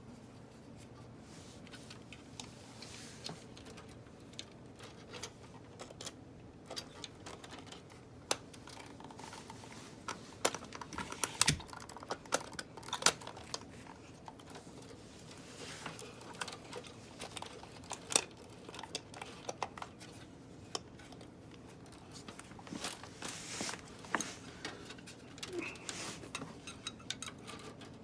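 Scattered small clicks and taps of computer cooler parts being handled and fitted, with a cluster of louder knocks about halfway through.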